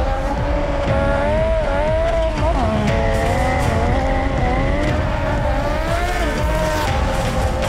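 A sportbike's rear tire squealing through a long sideways drift, the squeal wavering up and down in pitch over the engine running hard.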